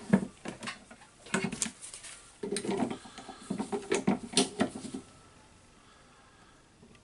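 Irregular metal knocks and clatter from a cordless impact driver being set in a bench vise and worked on; it stops about five seconds in.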